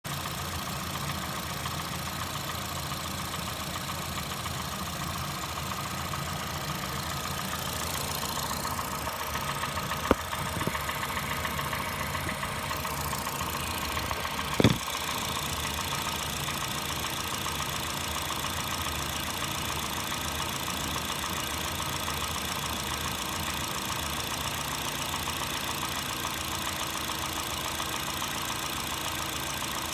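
2008 Honda Fit's 1.5-litre four-cylinder engine idling steadily with a rattling, knocking tap, which the owner suspects is piston slap. Two sharp clicks stand out, about ten and fifteen seconds in.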